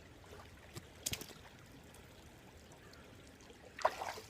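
Creek water trickling faintly, with a few short knocks or splashes about a second in and again near the end.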